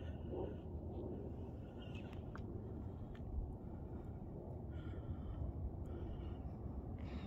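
Wind rumbling on the microphone while walking along a paved road, with a few faint ticks of footsteps and some brief, faint high chirps.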